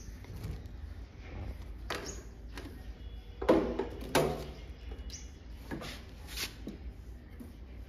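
Knocks and clunks of a Dasska TD 9 amplifier's metal case as it is handled and turned over. There are several separate knocks, with the loudest two about three and a half and four seconds in.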